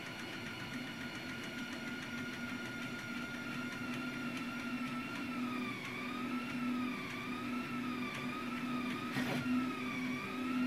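Anycubic delta 3D printer printing: its stepper motors whine over a steady low hum as the print head moves. About halfway through the whine begins rising and falling in pitch about once a second as the head traces curves, and there is a single click near the end.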